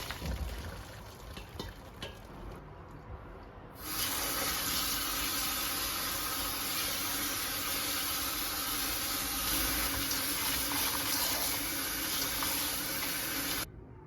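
Water running from a kitchen tap into a sink as a steady rush, turned on abruptly about four seconds in and shut off just before the end, after a few faint knocks.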